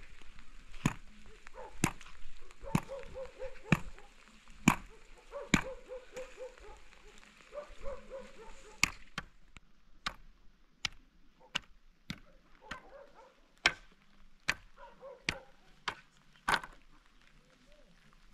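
Metal spade blade striking into straw and packed earth, sharp separate strokes about once a second, coming a little quicker in the last few seconds.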